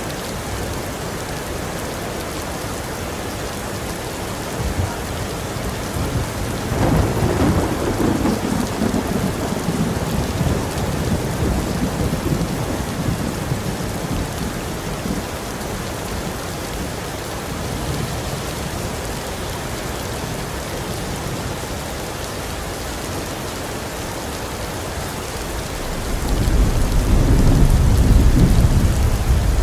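Heavy rain falling steadily, with two rolls of thunder: one rumbling up about a quarter of the way in and fading over several seconds, and a deeper, louder one building near the end.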